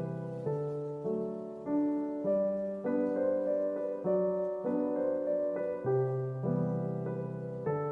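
Background piano music: soft chords and a slow melody, a new note or chord about every half second.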